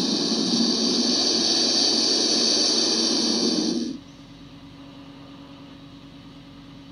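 Turkey vulture hissing: one long hiss that cuts off abruptly about four seconds in. Lacking true song, turkey vultures hiss like this as a warning when threatened.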